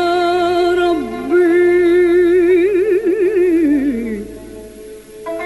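A woman singing an Arabic song, holding a long note with wide vibrato, dipping and climbing into an ornamented phrase that slides down and fades about four seconds in. A plucked string instrument starts up near the end.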